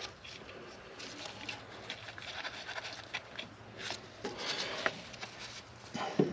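Scattered light knocks and rubbing from handling parts or tools, with a sharper knock near the end.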